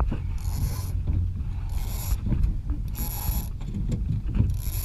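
Sheet line on a Lido 14 sailboat hauled through a block, four pulls in a row each about half a second long, as the crew trims in. Wind rumbles low on the microphone.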